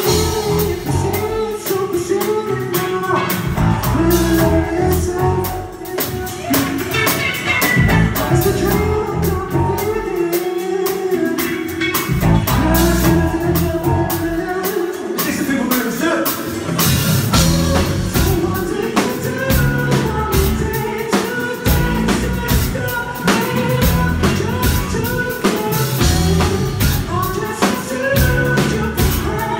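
A rock band playing live, with a singer singing over a drum kit, bass and electric guitar. The low end drops away briefly twice near the middle.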